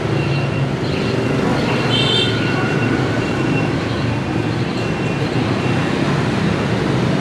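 Steady rumble of busy street traffic, with short faint high-pitched dashes recurring throughout and a brief cluster of high tones about two seconds in.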